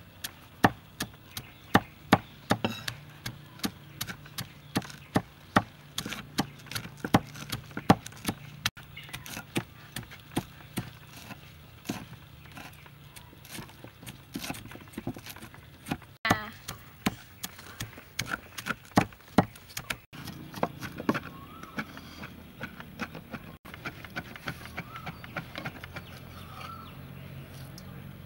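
Cleaver chopping fresh red chilies on a thick round wooden chopping block: a long run of sharp knocks, about two a second, at an uneven pace.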